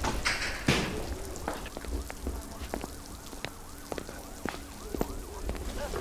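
Rain falling on hard ground, with scattered sharp drips close by.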